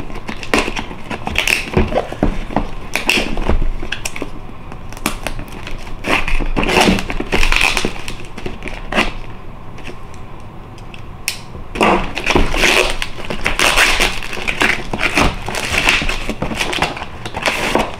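Stiff paperboard mailing envelope being slit with a folding pocket knife and torn open by hand: uneven bursts of crinkling and ripping with sharp crackles. After a short quieter lull a little past the middle, more rustling and scraping as the boxed item inside is worked out of the envelope.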